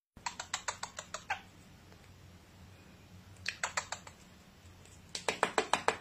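Cockatiel making rapid, sharp clicking sounds in three short runs of about eight clicks a second: one at the start, one about three and a half seconds in, and one near the end.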